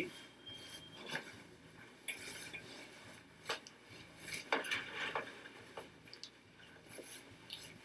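Faint rustling of a cloth hospital gown being pulled up under a bedsheet, with a few soft scattered clicks.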